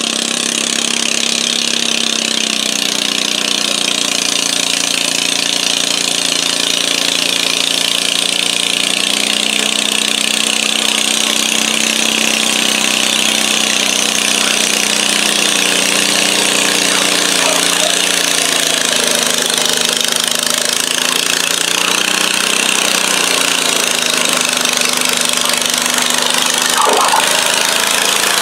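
International Harvester Cub Cadet garden tractor's engine running steadily under load as it drags a weight sled in a tractor pull. There is one brief sharp sound near the end.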